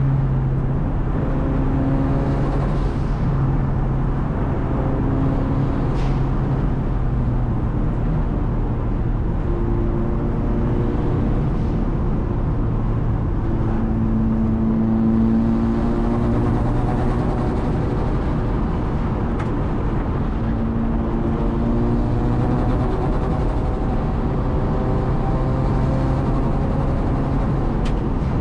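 Nissan S13's big-turbo SR20DET four-cylinder engine heard from inside the cabin while driving, its note shifting in pitch several times as the throttle and gears change, over steady road noise.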